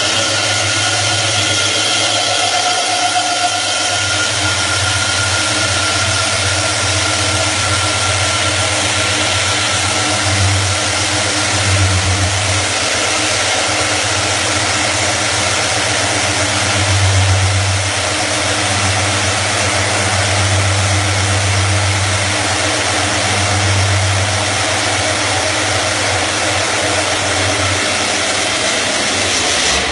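Manual stone edge-profiling machine running, its spinning tool grinding the edge of a curved stone piece held against it by hand. The grinding noise is steady, over a low motor hum that swells and eases several times.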